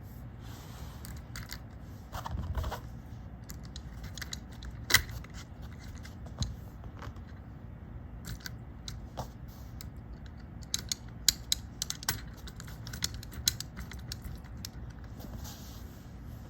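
Light clicks and small rattles of hard curtain-track parts being handled and fitted, with a sharper click about five seconds in and a quick run of clicks near the end, over a low steady hum.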